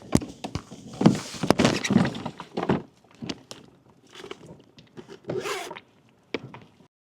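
Handling noises in a kayak: an irregular run of knocks, clicks and rustling scrapes, cutting off abruptly near the end.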